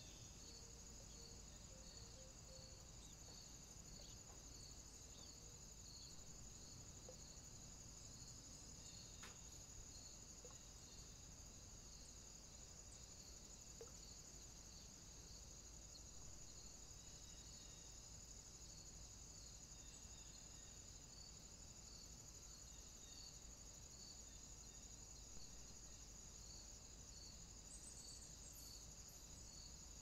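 Faint crickets chirping: a continuous high trill with a regularly repeating chirp, about three every two seconds.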